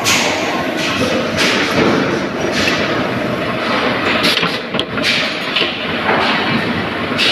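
Press-shop floor noise: mechanical power presses stamping sheet-metal parts, giving irregular heavy metallic thuds about once or twice a second over a steady machinery din.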